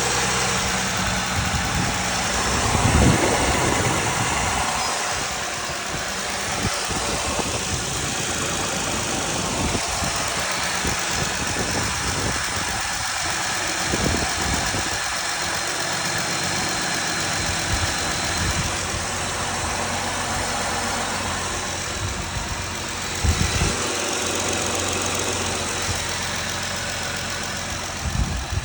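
Car engine idling steadily with a ticking noise that could be injector chatter or lifter tick. Two louder thumps come through, about three seconds in and again later on.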